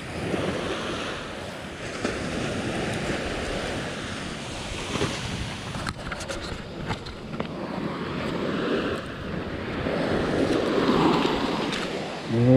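Surf breaking and washing up a sandy beach, with wind buffeting the microphone. A few short clicks about six to seven seconds in.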